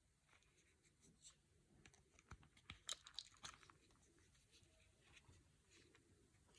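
Near silence, with faint scattered clicks and rustles, a little busier around the middle.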